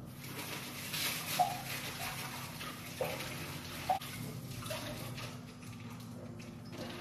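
Water running from a kitchen tap, with a few short clinks, easing off near the end.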